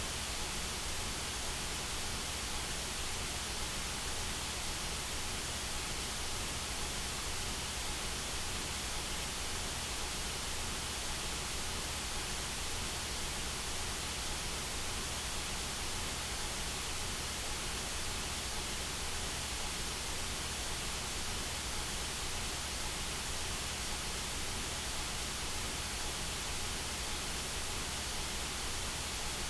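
Steady electronically generated white noise: an even, unbroken hiss spread across all pitches, without change.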